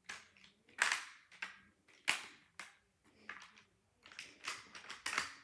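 Sharp plastic clicks and clacks from a toy bolt-action rifle built of Trio construction blocks as its action is worked by hand, coming as a string of separate knocks.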